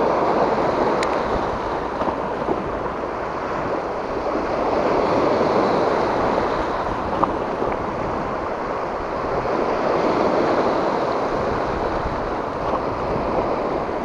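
Small sea waves washing and breaking over a rocky shore shelf, the surf swelling and easing every few seconds, with wind on the microphone. A single short click about seven seconds in.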